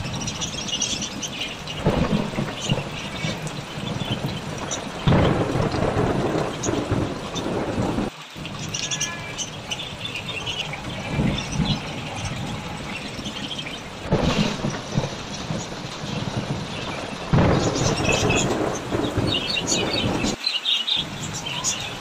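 Steady rain with repeated loud swells of noise, possibly thunder or gusts, and birds chirping high over it. The sound cuts out briefly twice.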